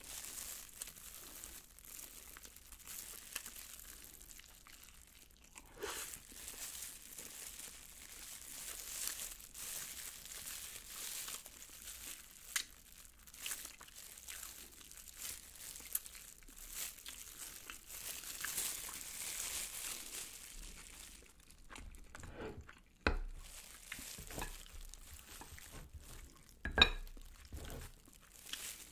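Close-miked eating of sauced fried chicken and rice: soft crunching and wet chewing mixed with the crinkling of a plastic glove as the hand holds the chicken, as a run of small clicks and crackles. Near the end comes one sharp tap, the loudest sound.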